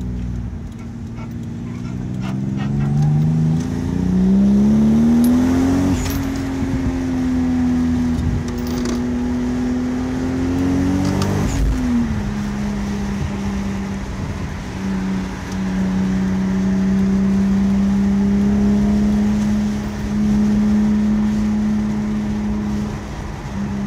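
Toyota Supra Mk IV's twin-turbo inline-six heard from inside the cabin, pulling hard with its pitch rising over the first several seconds. It changes gear about six seconds in, and again sharply about eleven seconds in, then settles into a steady cruise.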